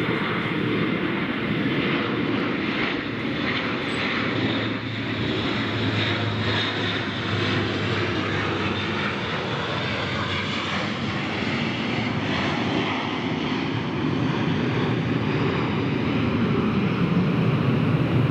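Airbus A400M military transport's four turboprop engines running on low landing approach: a steady drone with a high whine over a low propeller hum. It grows a little louder near the end as the aircraft comes closest.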